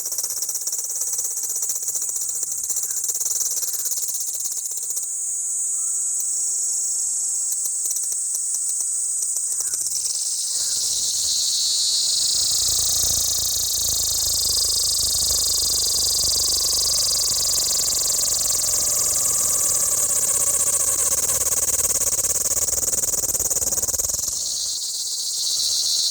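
A dense, steady, high-pitched chorus of shrilling insects. About ten seconds in, a low rumble joins it and drops out again shortly before the end.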